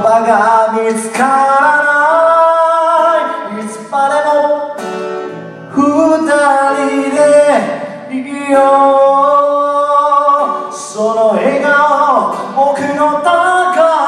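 A man singing a song, holding long notes, while accompanying himself on an acoustic guitar.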